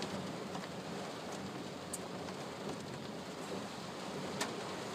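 Rain falling on a car's roof and windshield, heard from inside the cabin: a steady hiss with a couple of sharp drop ticks.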